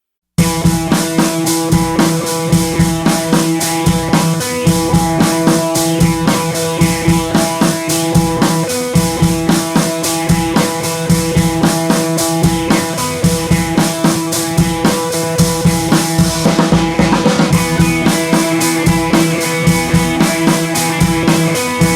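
Background music with a steady drum-kit beat and sustained pitched tones, starting suddenly from silence about half a second in.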